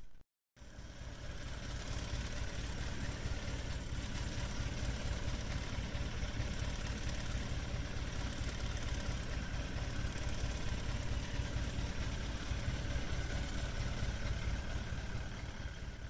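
Fishing boat's engine running steadily at a low rumble. The sound drops out for a moment just after the start, then picks up again.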